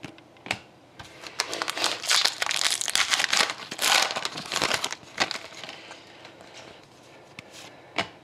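Foil wrapper of an Upper Deck SP Authentic hockey card pack being torn open and crumpled, a dense crinkling for about four seconds. After that come a few faint clicks as the cards are handled.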